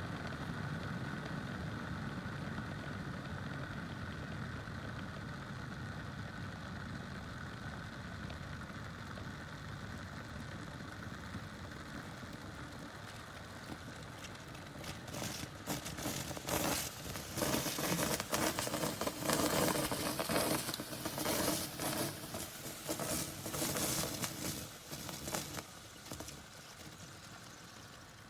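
Electric kettle heating water: a steady low hum at first, then from about halfway irregular crackling and popping builds as the water nears the boil, dying down shortly before the end.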